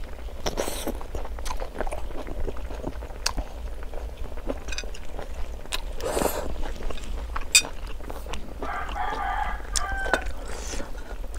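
A rooster crows once, a drawn-out call of about a second and a half, starting near the end. Before it come sharp clinks of chopsticks and a spoon on a plate, and a short slurp of noodles about six seconds in.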